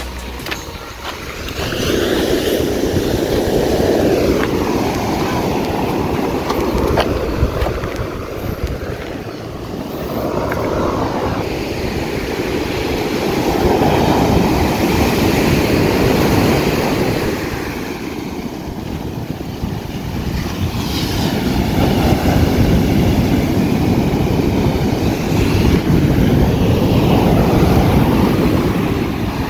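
Ocean surf breaking and washing up a sandy shore, a loud rushing roar that swells and eases in long waves about every ten seconds.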